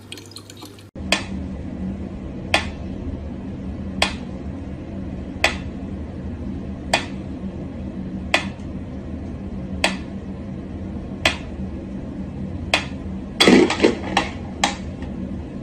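Mechanical pendulum metronome ticking slowly and evenly, about one sharp tick every second and a half, over a steady low hum. Near the end a louder scuffle of knocks and rustling breaks in among the ticks.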